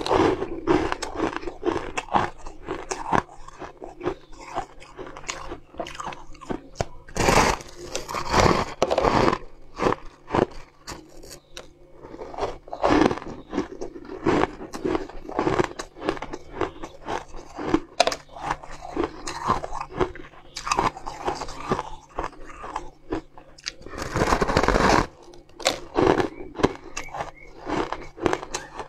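Close-up crunching of someone biting into and chewing a frosty block of layered pink-and-white ice: dense crackling crunches throughout, with a few louder, longer bites among them.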